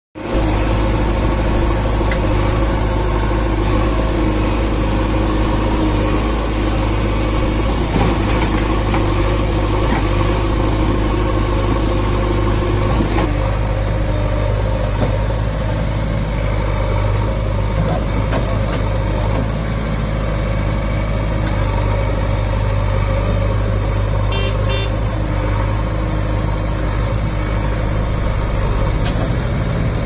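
JCB 3DX backhoe loader's diesel engine running steadily, with a shift in its tone about 13 seconds in.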